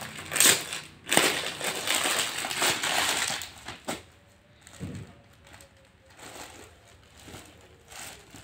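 Rustling and crinkling of suit fabric being handled and unfolded, loud for about the first three and a half seconds, then faint.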